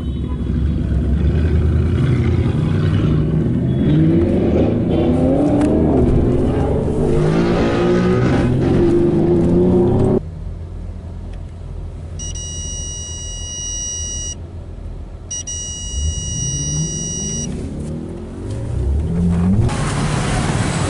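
Car engine accelerating hard, its pitch climbing in several steps through gear changes, then cut off suddenly about halfway through. After that, quieter engine and road noise with two long, high electronic beeps about a second apart, and another engine revving up near the end.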